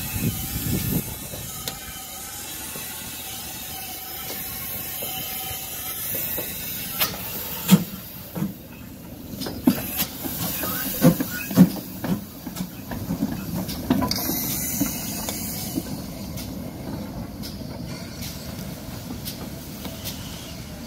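GWR Small Prairie 2-6-2 tank steam locomotive moving slowly past with steam hissing from around its cylinders. A series of sharp clanks and knocks comes in the middle, and a louder burst of steam about fourteen seconds in.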